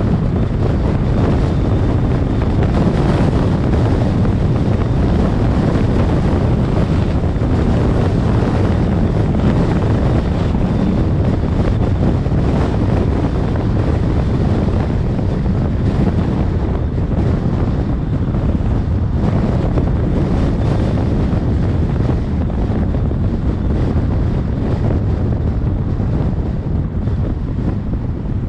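Steady, loud wind noise on the microphone of a camera on a moving car, with road noise from the drive underneath.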